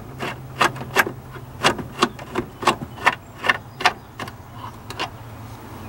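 Wrench working the headlight switch's retaining nut: a string of sharp metallic clicks, two to three a second and unevenly spaced, stopping about five seconds in, over a low steady hum.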